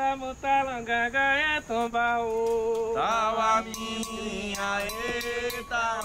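A slow sung chant: a single voice holds long, steady notes that step from one pitch to the next, with a new phrase starting about halfway through.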